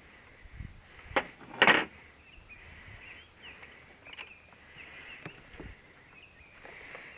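Hand tools and metal hardware being handled: a few sharp clinks, the loudest a short clatter about a second and a half in, over insects chirping steadily.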